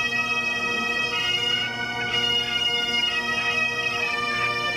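Galician bagpipes (gaitas) of a pipe band playing a melody over a steady, unbroken drone.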